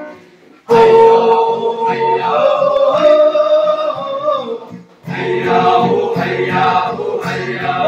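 A group of men singing a worship song together in long held phrases, starting just under a second in and pausing briefly about five seconds in.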